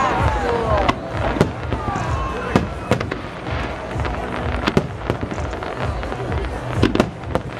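Aerial fireworks shells bursting overhead: many sharp bangs and cracks at irregular intervals over a continuous low rumble.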